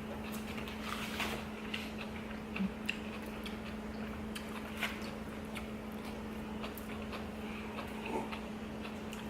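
A person eating quietly, with scattered small clicks and chewing sounds at uneven intervals over a steady low hum.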